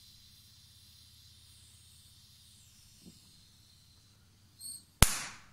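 Oxyturbo Turboset 110 oxy-gas bench torch flame hissing steadily, fading away about halfway through as the flame is shut off. Near the end comes a brief high squeak, then a loud sharp knock that dies away quickly.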